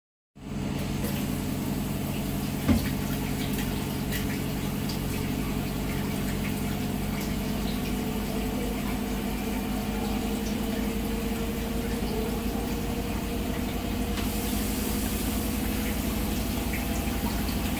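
Water spraying from a handheld shower head onto a tiled bathroom wall. It comes on right at the start, then runs as a steady rush with a low hum beneath it. There is one sharp knock a few seconds in, and the spray turns hissier about two-thirds of the way through.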